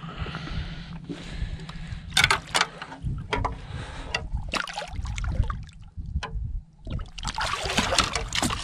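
Lake water splashing as a catfish is grabbed by hand at the side of a boat, with scattered sharp splashes and knocks and a burst of heavy splashing near the end as the fish thrashes at the surface.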